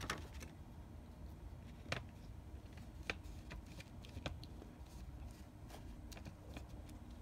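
Faint taps and clicks of a stamp being handled and pressed onto paper: a few sharp ticks one to two seconds apart over a low steady room hum.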